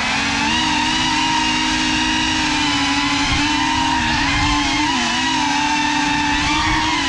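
GEPRC Cinelog 35 cinewhoop's brushless motors and ducted propellers whining steadily in fast indoor flight, heard from the onboard camera. The pitch dips briefly about four and five seconds in as the throttle eases.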